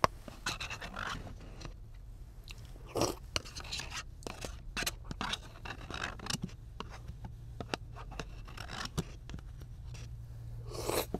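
A spoon scraping and clicking against the inside of a paper bowl, with chewing and mouth sounds between scoops.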